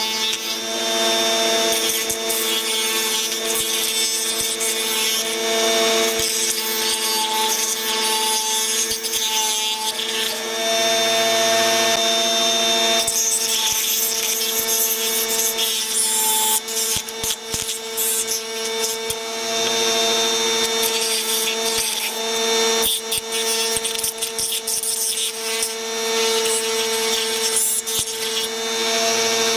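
Dremel rotary tool running with a steady whine, its bit grinding against the inside of a walnut shell to smooth the cut basket; the rough grinding noise swells and eases as the bit is pressed in and moved around.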